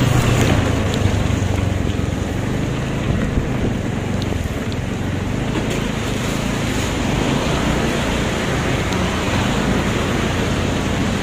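Wind rushing over the microphone of a moving Honda Scoopy scooter, with the scooter's engine running low underneath and tyres hissing on the wet road.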